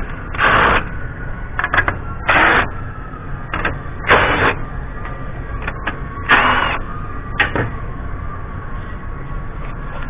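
Handheld cordless power driver run in four short bursts, about two seconds apart, backing out grille fasteners, with sharp clicks between the bursts.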